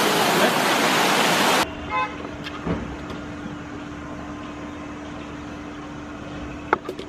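Loud rushing water from an artificial garden waterfall, cut off abruptly. Then a quieter hum of distant traffic, with a short horn toot and a sharp click near the end.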